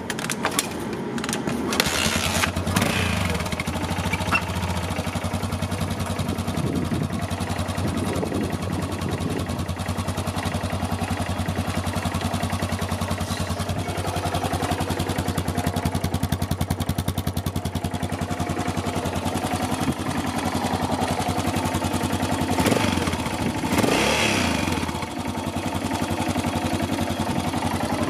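Yamaha XT600's single-cylinder four-stroke engine starting and then idling through a new Dominator aftermarket exhaust, with an even fast thump. The throttle is blipped a few times, briefly near the start, again about eight seconds in, and once more near the end, each rev rising and falling back to idle.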